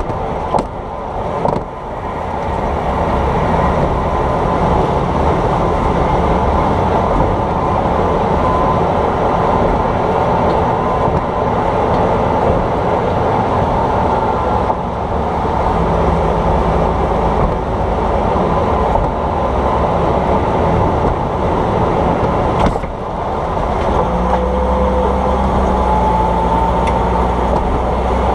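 Vehicle driving, heard from beside its shock absorber: steady road and running noise with a few sharp knocks from the suspension near the start and once about 23 seconds in, the clunking noise being chased. A steady low hum joins near the end.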